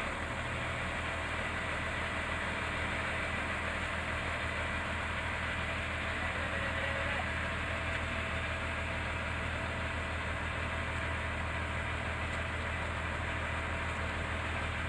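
Heavy vehicle's diesel engine idling steadily with a constant low hum.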